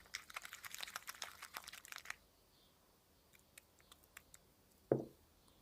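Wet, sticky slime being stirred, giving a fast run of small crackling, sticky clicks for about two seconds, then a few faint clicks and one brief louder sound near the end. The slime is still runny and tacky, not yet set.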